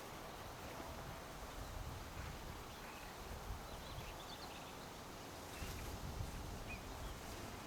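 Faint, sparse bird calls, a few short high chirps, over a steady low rumble of outdoor ambience.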